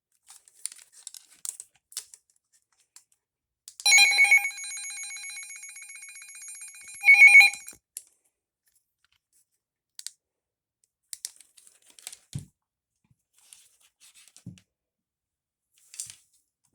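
Handheld weather alert radio sounding its siren test: a high electronic alarm tone held at one pitch with a rapid trill. It lasts about four seconds and is loudest at its start and end. Faint scattered clicks come before and after it.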